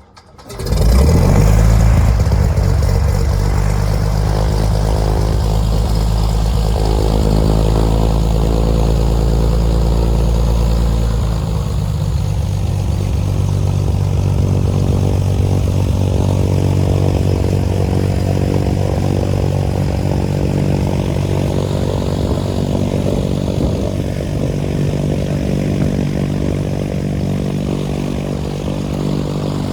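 Cessna 182P's 280 HP Continental IO-520 six-cylinder engine and Hartzell three-blade propeller running steadily. The sound comes in within the first second, and the deepest rumble eases about eleven seconds in.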